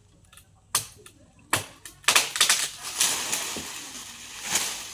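Two sharp chopping strokes on wood, followed by about two and a half seconds of dense crackling and snapping that slowly dies away, like a cut branch breaking and coming down through leaves.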